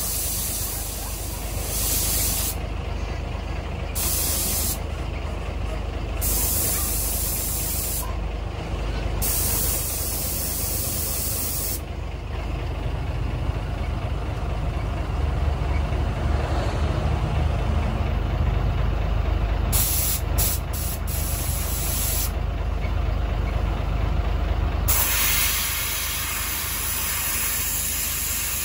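Compressed air hissing from a gravity-feed paint spray gun, triggered in bursts of a few seconds with a softer stretch in the middle, over a steady low rumble. The air is coming out too strong for the gun, as the painter finds.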